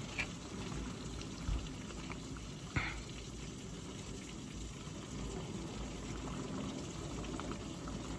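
Heavy rain pouring down, heard from indoors behind a closed window as a steady wash, with three brief knocks in the first three seconds.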